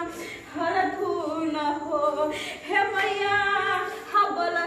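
Women singing a devotional folk song to the mother goddess, unaccompanied, in long held and gliding notes.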